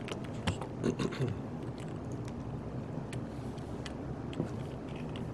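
Scattered sharp clicks of camera shutters, several in the first second and a half and a few more later, over a steady hum of room noise.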